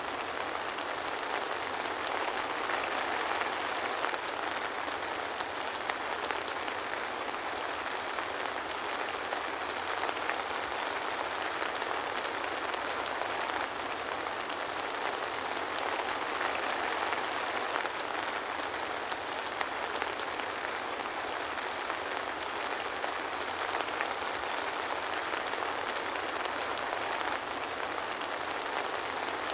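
Steady soft rain with no thunder, a dense even patter of drops with faint individual drop ticks and almost no low rumble.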